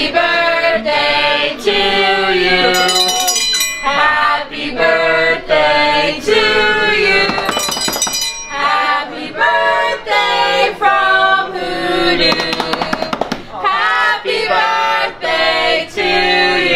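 A group of restaurant staff singing a birthday song together, loudly and in unison, as a dessert with a lit candle is brought to the table.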